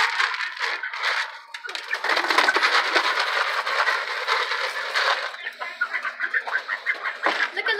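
Dry corn chicken feed scooped with a plastic scoop and poured out, the grain rattling and hissing for about five seconds. This gives way to lighter, quick ticks, about three or four a second.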